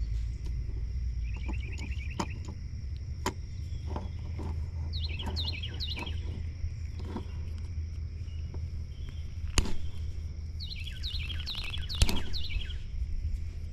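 Small songbird chirping in quick descending bursts, three times, over a steady low rumble. A few sharp clicks and snips are heard while the outer sheathing of an extension cord is being cut back, the loudest about nine and a half and twelve seconds in.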